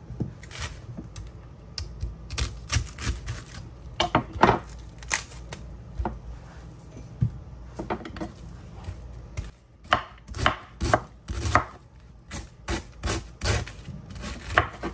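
Chef's knife slicing green cabbage on a wooden cutting board: sharp knocks as the blade cuts through the leaves and hits the board, coming in quick irregular runs with short pauses.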